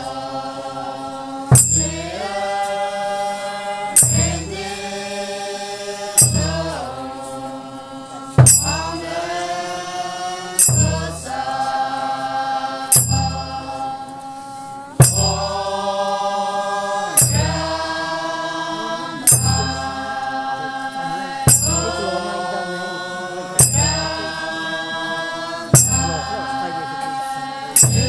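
Group of voices chanting a traditional Naga dance song in long held notes. Each phrase swoops up in pitch and is marked by a sharp beat with a low thud, about one every two seconds in a steady rhythm.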